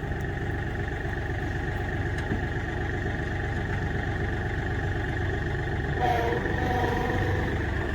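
Tractor engine idling steadily, with a short pitched sound about six seconds in.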